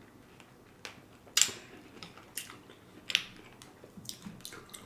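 Close-miked eating of berries and pomegranate seeds in coconut water: chewing and mouth smacks with five or six short sharp clicks, the loudest about a second and a half in.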